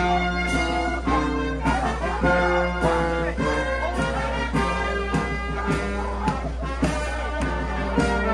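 Live brass band of trumpets and trombones playing a tune, with a regular beat of short strokes under the held notes.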